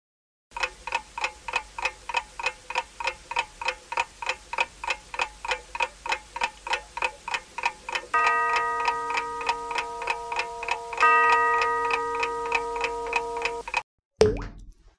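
Clock ticking sound effect, about three ticks a second, with a bell-like chime struck twice about three seconds apart, each ringing on over the ticks. The ticking stops suddenly, followed by a short swooping sound effect near the end.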